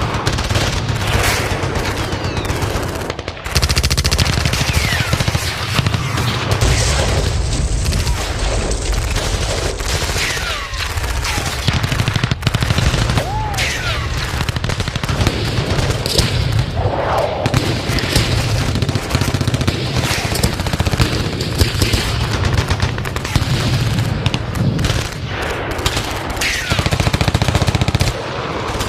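Battle sound effect of sustained, dense gunfire: rapid automatic-weapon bursts overlapping continuously, with a few short gliding whistle-like tones here and there.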